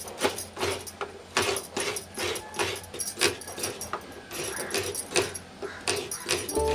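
Glass bangles clinking in a steady rhythm, about three times a second, as hands rub and crumble fresh grated coconut over a clay dish.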